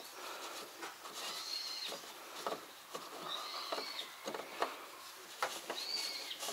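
Fuel being poured from a can spout into a tractor's filler neck: irregular glugs, small clicks and knocks of the spout against the neck, with three brief high chirps about two seconds apart.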